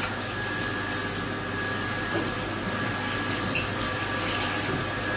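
Haas CNC vertical mill drilling an injector port into a billet intake runner under flood coolant: a steady machine tone from the running spindle over the continuous splash of coolant, with a brief light click about three and a half seconds in.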